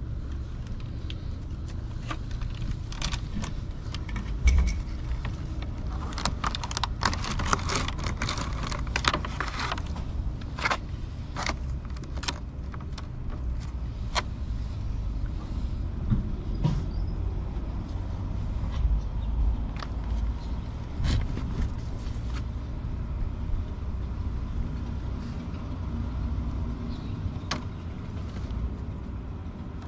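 Light clicks and rattles of a clear plastic food tub being handled and set down, thickest in the first half, over a steady low rumble.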